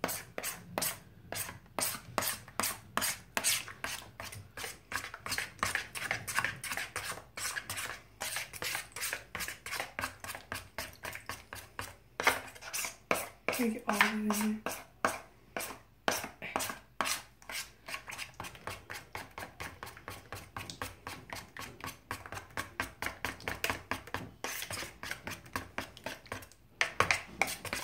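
A plastic spoon stirring white glue and water in a large plastic bowl, scraping and clicking against the bowl's sides and bottom in quick, even strokes, several a second.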